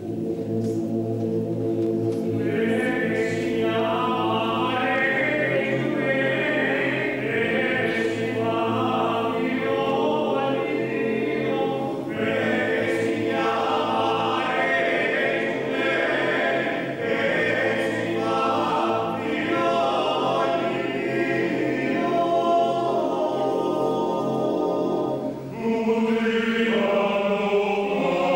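A choir singing slow, sustained chant-like phrases, with a brief break in the singing near the end.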